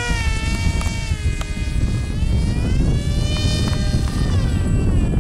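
Electric motors and propellers of RC foam model planes whining, the pitch sliding down and back up as the throttle is worked, over heavy wind rumble on the microphone.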